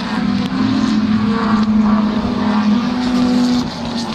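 Historic racing car's engine held at steady high revs, its pitch stepping up slightly about half a second in and falling away near the end.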